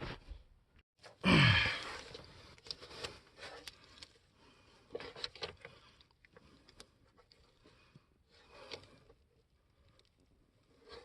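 A person's loud exhale falling in pitch about a second in, then scattered light clicks and scrapes of hand tools at work.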